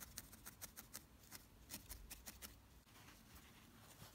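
Felting needle stabbing repeatedly into wool: faint quick pokes, about five a second, thinning out after about three seconds.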